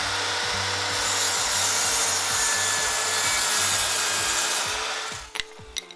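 Sound effect of a saw cutting through wood, a steady rasping noise that fades out about five seconds in. Under it runs music with a steady low beat, and two sharp clicks come near the end.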